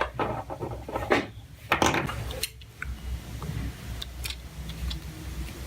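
Clinks and knocks of small hard objects being handled, loudest about one and two seconds in, followed by a few fainter ticks.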